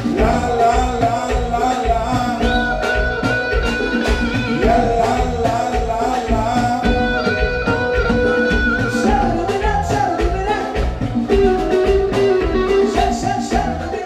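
Live band music: electric guitar over a steady drum and bass beat, with singers holding long sung notes.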